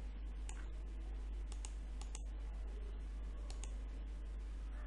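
Scattered sharp clicks of a computer mouse, a few per second at irregular intervals, over a steady low hum.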